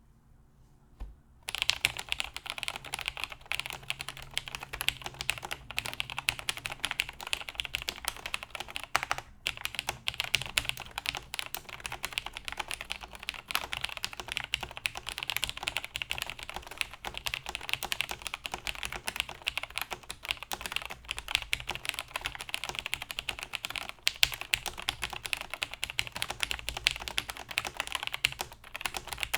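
Continuous rapid typing on a Cherry MX5000 Ergoplus (G80-5000) mechanical keyboard with lubed vintage Cherry MX Brown switches, plateless mount and Cherry doubleshot keycaps. A single keystroke comes about a second in, the steady typing starts a moment later, and there is a brief pause around nine seconds.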